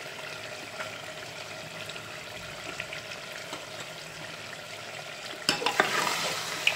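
Mutton trotters frying in oil in an aluminium pressure cooker with a steady, gentle sizzle. About five and a half seconds in, a spoon starts stirring and scraping through the pot, and the sound gets louder with clinks against the cooker.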